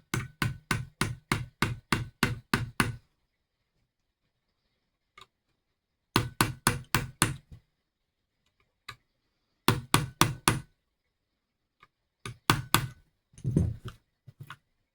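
Takedown pin of a Hi-Point JCP .40 pistol being tapped back into the frame: sharp knocks about four a second, in a long run at the start and then several shorter runs with pauses between.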